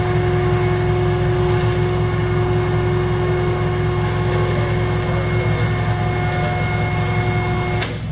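Steady machine running with a loud low hum and a whine; the whine cuts off with a click just before the end, while the low hum carries on.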